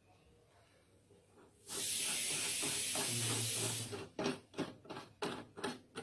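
A steady hiss that starts suddenly about two seconds in, lasts a little over two seconds and cuts off.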